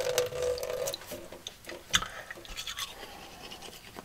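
Faucet running briefly into a stainless steel sink, then a toothbrush scrubbing teeth, with a sharp knock about two seconds in.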